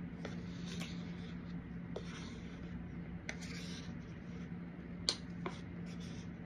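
White powder pouring and sliding from a clear plastic tub onto a heaped cup: soft hissing rustles in short spells, with several light plastic clicks and taps, the sharpest about five seconds in. A faint steady hum sits underneath.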